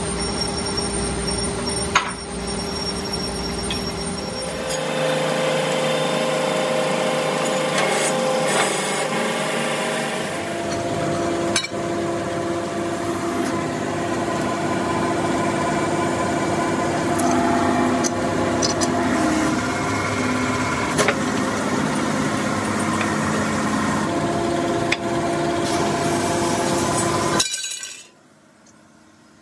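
Hydraulic press forming a steel blank into a tractor wheel disc: a steady mechanical whine whose pitch steps up and down as the ram presses, with a few sharp metal clicks. It cuts off suddenly near the end.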